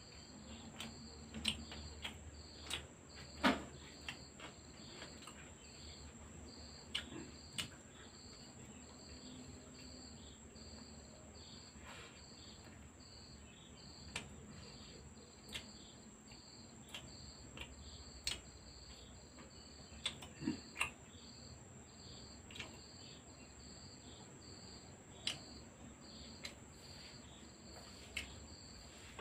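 A cricket chirping in a steady, regular pulse, faint against quiet room tone. Scattered small clicks and taps break in now and then, the sounds of eating by hand from a plate.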